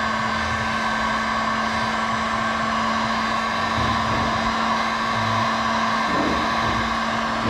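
Heat gun running steadily with a constant whine, warming a freshly applied adhesive emblem so it bonds and stays put.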